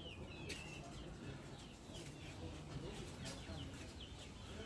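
Chickens in a coop clucking, with many short, high, falling chirps several times a second and a couple of brief clicks.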